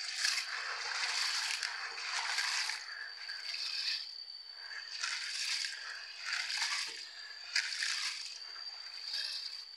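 A hand rubbing and squeezing dried black-eyed beans in water in a bowl to wash them: a wet, gritty crunching in repeated strokes about once a second.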